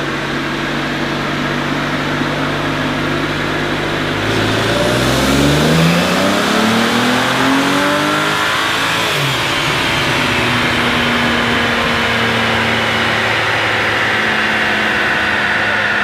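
2007 BMW 335i's N54 twin-turbo inline-six, with a catless downpipe, running on a chassis dyno: steady at first, then about four seconds in it climbs in revs for several seconds under dyno load, lets off with a falling pitch near the middle, and settles back to a steady run.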